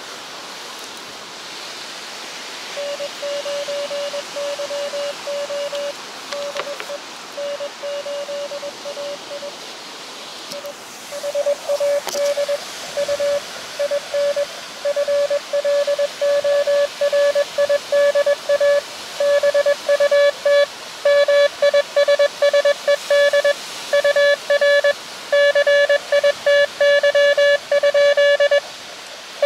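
Morse code (CW) from an Elecraft KX2 transceiver's speaker: a steady beeping tone keyed in dots and dashes over a hiss of band noise. A sparser stretch of keying is followed, after a short break about ten seconds in, by a longer, louder, denser run. That run is another station answering, asking for the operator's city.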